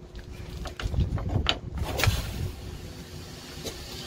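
Knocks and metallic clicks as the red air-brake coupling head of a truck trailer is handled and pushed back onto its connector, followed by a fainter steady hiss.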